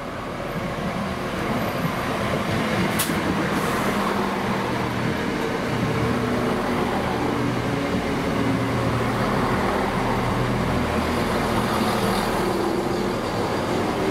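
A diesel train's engine running close by, growing louder over the first two seconds and then holding steady, with a single sharp click about three seconds in.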